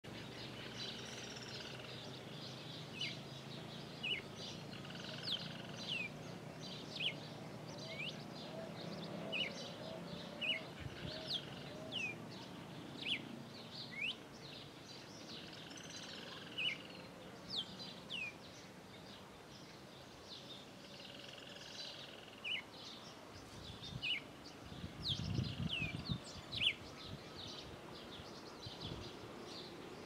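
Red-cowled cardinal singing: short, sharp whistled notes repeated about once a second, mixed with a few longer warbled phrases. A low rumble comes in briefly about 25 seconds in.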